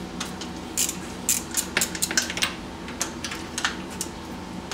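Irregular metallic clicks and clinks of a ratchet and spark plug socket being worked onto and turning the spark plugs of a Polaris RZR engine, loosening the old plugs.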